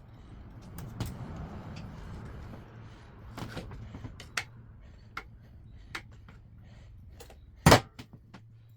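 Metal tools and engine parts clinking during an engine teardown: scattered sharp clicks and knocks over a steady low hum, with one loud clunk about three-quarters of the way through.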